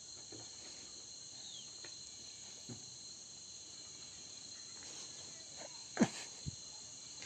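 Steady high-pitched chirring of crickets in the background, with a few soft knocks, the loudest about six seconds in.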